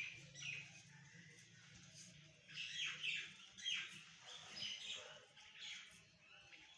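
Birds chirping: many short, falling high-pitched calls in clusters, thinning out for about a second and a half before picking up again.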